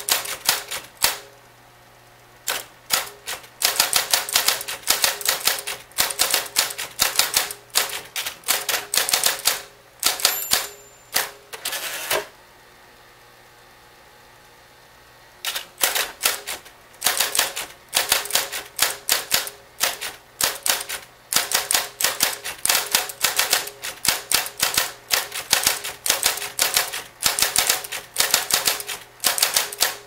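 Ward Cartridge AC electric typewriter being typed on: fast runs of sharp key strikes in bursts, with a gap of about three seconds near the middle. A steady low hum sits underneath.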